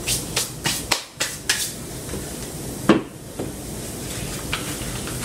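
Sharp taps and clicks of spice jars being handled on a kitchen counter: about six quick ones in the first second and a half, a louder knock about three seconds in, and a few lighter clicks after.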